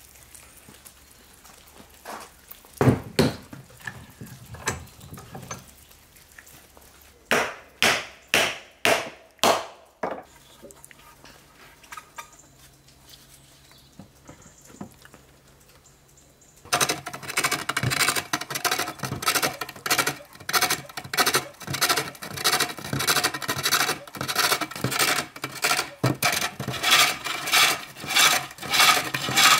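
A few scattered knocks and a quick run of about six sharp wooden knocks, then, from a little past halfway, a hook tool cutting a wooden bowl blank spinning on a foot-powered pole lathe. It goes as a steady rhythm of scraping cuts, about three every two seconds, following the back-and-forth of the treadle.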